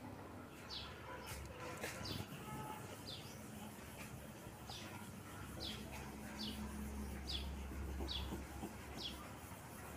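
A small bird chirping repeatedly: short, falling chirps about once a second, over a faint low hum.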